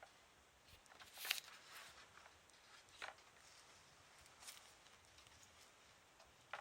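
A kitten playing in a quiet room: a few soft, scattered taps and a brief rustle about a second in, from paws and play on the floor.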